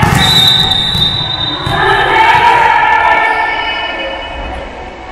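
A long, steady, high-pitched referee's whistle blast at the start, followed by players' voices calling out in a reverberant sports hall.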